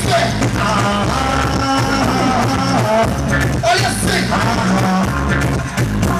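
Soca music played loud over a stage sound system with a steady bass beat, and a singer on the microphone over it.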